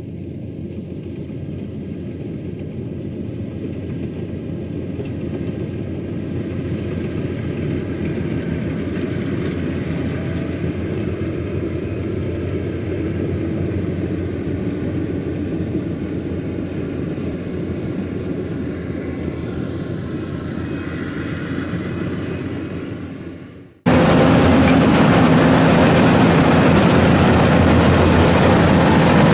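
Rice combine harvester running steadily, its engine humming under the threshing noise. About 24 seconds in the sound drops out for a moment and comes back louder.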